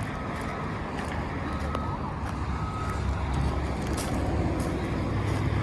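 Steady road and engine noise of a car driving, heard from inside the moving car: a low rumble with a few faint ticks.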